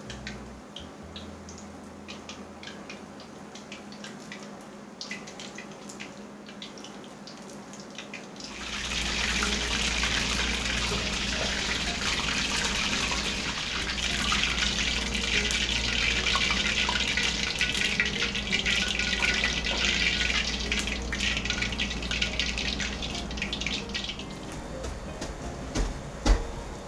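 Soda-water-batter fritters deep-frying in hot oil at about 170 °C in an iron wok: a faint crackle at first, then from about a third of the way in a loud, dense sizzle that eases off near the end. A single sharp knock comes shortly before the end.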